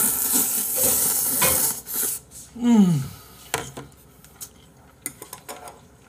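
A person slurping a mouthful of noodles, a loud wet hiss for about two seconds, followed by a short 'mm' falling in pitch. Then quieter chewing with small scattered wet clicks.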